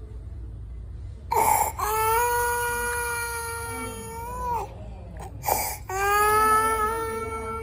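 Infant crying in two long wails, each starting with a short, harsh, noisy gasp of breath in: inspiratory stridor from a narrowed larynx.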